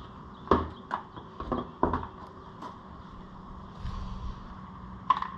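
Sharp clicks and hollow knocks of hard plastic, about six in the first two and a half seconds and one more near the end, as the clips holding an ATV's plastic airbox are unsnapped and the airbox is worked loose.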